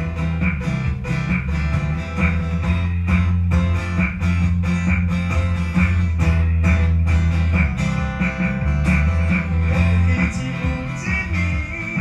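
A small acoustic-style band playing live: electric bass holding low notes, a strummed acoustic guitar and percussion keeping a steady beat.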